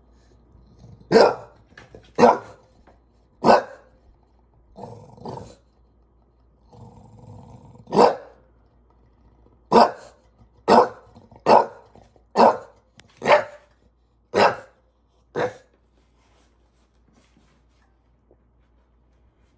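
English bulldog barking about eleven times in sharp single barks, with a softer grumbling growl in between. The barks stop about four seconds before the end.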